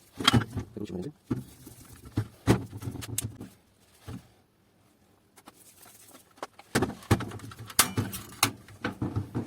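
Irregular clicks and knocks of plastic printer parts being handled while a toner developer unit is reassembled, with the doctor blade being fitted against the magnetic roller. The clicks come in two clusters with a short quiet pause between them.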